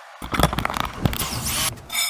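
Cordless drill running on a trailer's crank-type stabilizer jack: motor whirring with rapid rattling of the jack mechanism, easing off near the end, followed by a short ringing metallic clink.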